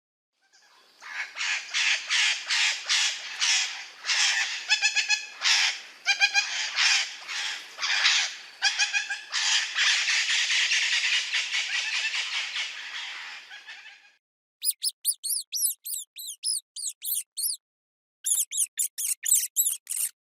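Parrots squawking: a long run of rapid, harsh squawks, several a second, that blurs into a continuous screech, then after a short break two bursts of quick, high-pitched chirps.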